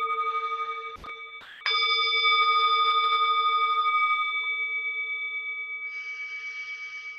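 A meditation bell rings. The tone from an earlier strike is dying away when there is a short knock about a second in. The bell is struck again a moment later and rings on with a slightly wavering tone, slowly fading.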